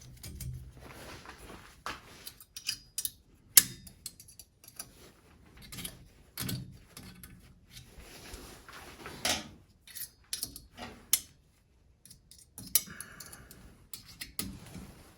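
Scattered metallic clinks, taps and knocks at an irregular pace, with a few short quiet gaps: metal parts and hand tools being handled during workshop assembly.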